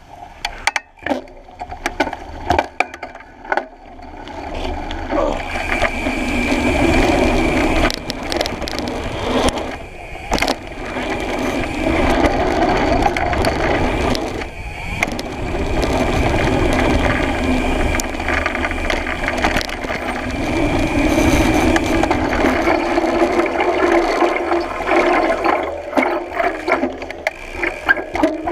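A mountain bike's knobby front tyre rolling fast down a dirt trail: a steady rushing roar of tyre on dirt and wind that builds up about four seconds in, with scattered clicks and rattles from gravel and the bike.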